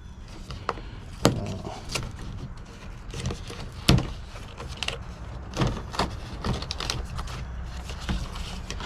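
A small product box being worked open by hand: scattered clicks, knocks and scrapes of the packaging, the sharpest knock about four seconds in.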